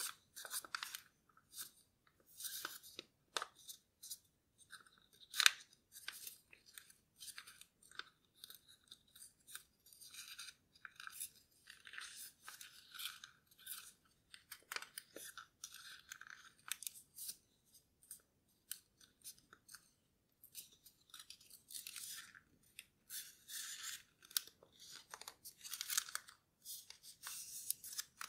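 A sheet of origami paper rustling and crinkling in the hands as it is folded and creased, in many short, irregular rustles, the sharpest about five seconds in.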